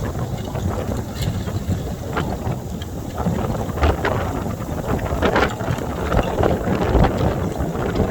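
Small ice fragments sliding back over a lake's ice sheet and dropping into the water: a continuous hissing, tinkling clatter of many tiny clicks, which gets busier after about three and a half seconds. Wind on the microphone rumbles underneath.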